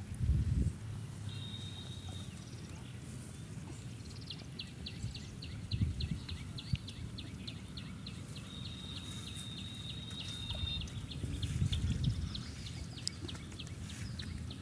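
Low rumbling and sloshing of shallow pond water around a person wading and groping along the bottom by hand, with a few heavier surges. A bird calls in the background: a fast series of high chips, about four a second, and a couple of held high whistles.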